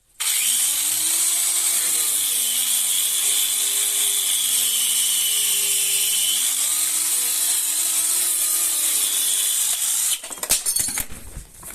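A power tool running under load on rusty metal, with a strong steady hiss and a pitch that wavers up and down; it stops about ten seconds in, followed by a few sharp knocks and clatters.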